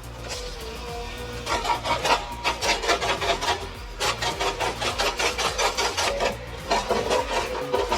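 Background music with a quick, even percussive beat that comes in about a second and a half in, over steady held tones.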